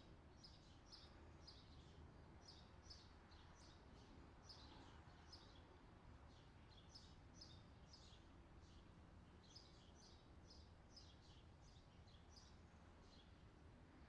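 Faint background track of summer birdsong: small birds chirping in short, high, quickly repeated notes, about two or three a second, over a low steady hum.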